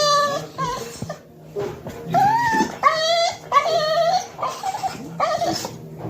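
Cocker spaniel whining in a run of about seven short, high, wavering sing-song calls with brief pauses between them: the dog's excited dinner-time noises while it waits for food.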